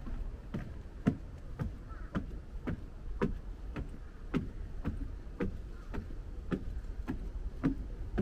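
Footsteps climbing wooden stairs: an even tread of knocks on the wooden steps, a little under two steps a second.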